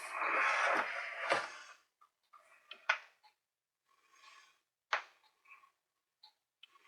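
A plastic table radio cabinet scraping as it is slid and turned over on a workbench, then a few sharp clicks and knocks as it is handled.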